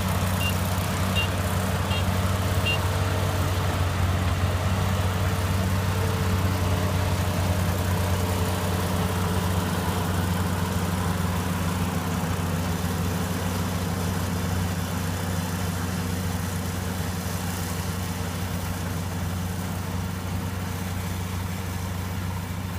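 Rice combine harvester's engine running steadily in a deep, even hum that eases off slightly towards the end. A few short high beeps sound in the first seconds.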